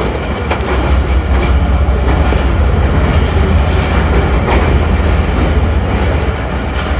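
Express passenger train running on its rails as it arrives at a station: a steady low rumble of the coaches, with occasional wheel clicks over rail joints.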